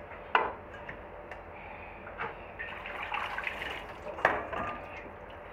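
Kitchen handling noises from pieces of raw soft-shell turtle being moved on a plastic cutting board: a sharp knock about a third of a second in and another about four seconds in, with wet, splashy noise between them.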